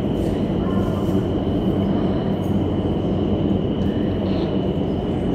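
Indoor vertical wind tunnel running with a flyer airborne: a constant low rush of fan-driven air, with a thin steady high whine above it.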